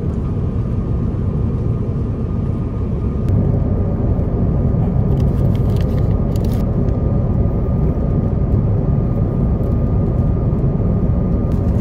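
Steady airliner cabin noise: a loud low rumble with a faint steady tone through it. A paper bag crackles a few times between about three and seven seconds in.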